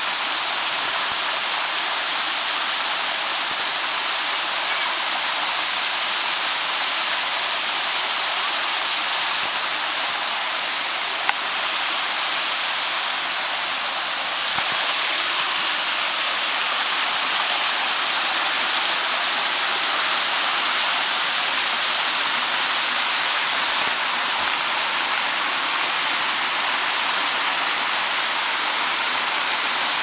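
Waterfall and its cascades pouring steadily over rocks: a continuous, even rush of falling water.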